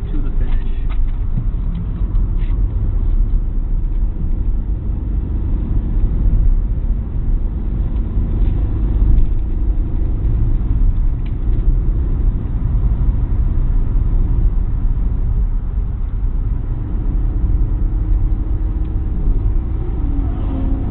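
Cabin noise of a worn-out Opel Corsa driven hard at speed: a steady low rumble of engine, tyres and wind. An engine note stands out more clearly in the last few seconds.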